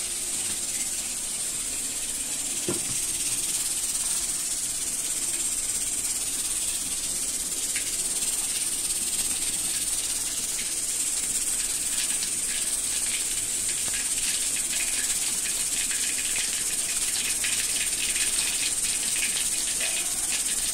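Tadka of mustard seeds, cumin and urad dal sizzling in hot oil in an aluminium pot, a steady hiss with small crackles and pops that grow much more frequent from about halfway through as the seeds start to splutter.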